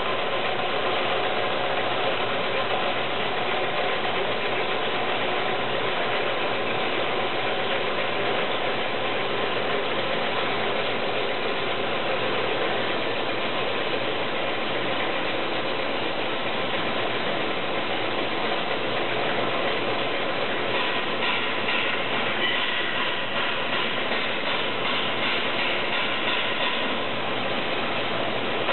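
Round vibratory screening machine running with a steady mechanical rattle while crystalline silica is fed onto its screen and sifted through.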